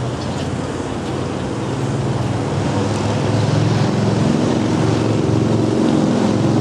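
A motor vehicle engine running steadily, growing louder toward the end.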